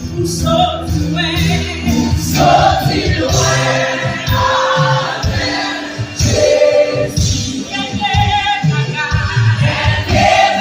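Live gospel worship song: a woman leads the singing with backing singers joining in, over a band with electric bass.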